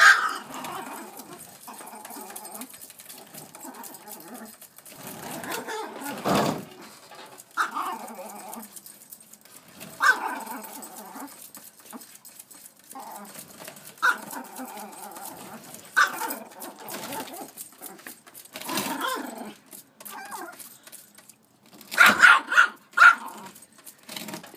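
Yorkshire terrier barking at a recycling bin, single sharp barks a few seconds apart, then a rapid run of loud barks near the end.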